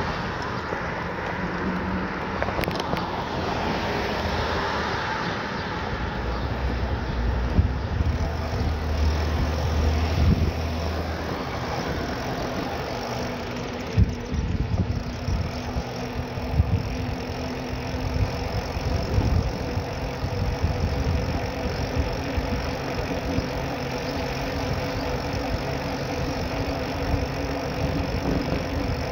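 Traffic and road noise heard from a moving bicycle: cars passing with their engines running, a stronger low engine hum from about six to twelve seconds in, and a few sharp knocks.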